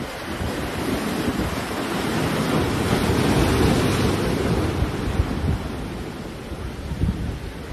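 Sea waves breaking and washing over shoreline rocks, the surf swelling to its loudest about halfway through and then easing. Wind buffets the microphone with low rumbling gusts.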